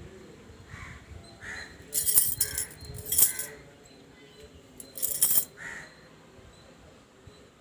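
Crows cawing, short harsh calls repeated about once a second, with three louder, hissier bursts about two, three and five seconds in.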